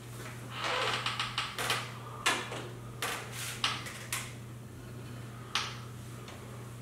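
Hands rigging fishing tackle: a quick run of light clicks and rustles for the first four seconds, then a single click later on, over a steady low hum.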